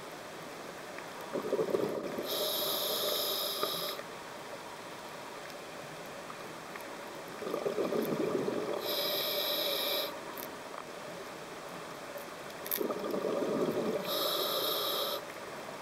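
Scuba diver breathing underwater through a regulator: three breaths about six seconds apart. Each has a high hiss from the regulator and a burble of exhaled bubbles.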